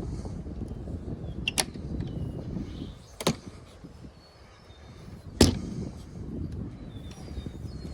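A few sharp knocks and clicks from handling the chicken coop's nest box while eggs are gathered, the loudest about five and a half seconds in, over a low rumble.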